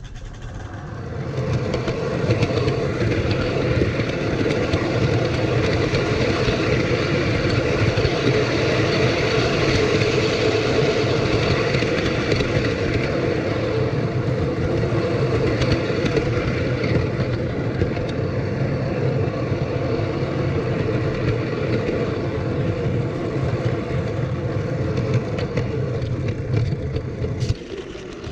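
Model train running along its track: a steady mechanical whirr of the motor and wheels on the rails that builds up over the first couple of seconds, then runs on evenly, dipping briefly near the end.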